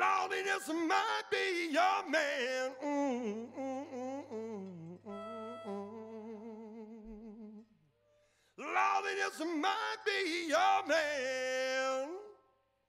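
Unaccompanied solo melodic line from a live blues-rock band, with the rest of the band dropped out. One line of bending, wavering pitch in two phrases, split by a short pause about two-thirds of the way through, over a faint steady hum.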